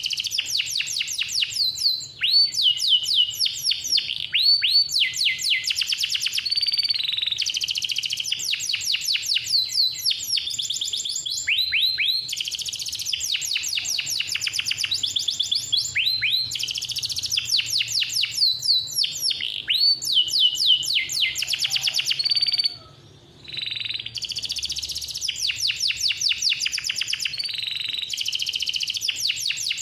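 Male domestic canary singing a long, almost unbroken song of fast trills and rolls, quick series of repeated high notes and sweeps, with one short pause about two-thirds of the way through.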